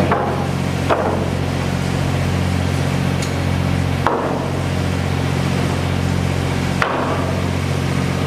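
Construction work: four sharp hammer-like knocks, irregularly spaced, over the steady drone of running machinery.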